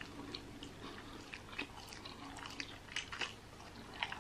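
Close-miked chewing of spicy instant noodles: many short, wet mouth clicks and smacks at an uneven pace.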